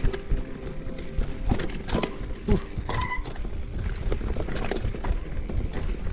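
Mountain bike clattering over a rough dirt trail: irregular knocks and rattles from the frame, chain and suspension over a steady low rumble of wind on the microphone, with a short squeal about three seconds in.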